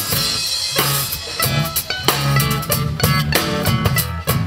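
Live band playing an instrumental breakdown with no vocals: drum kit keeping a steady beat over bass guitar, with guitar on top.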